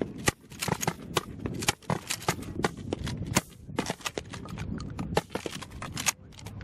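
Sharp, irregular pops, several a second, of nonlethal training rounds being fired.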